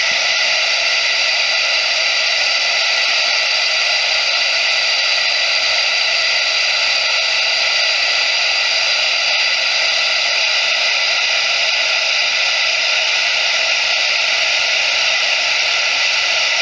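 Steady, unchanging hiss like white noise or radio static, fairly loud and even throughout, with no rhythm or separate events.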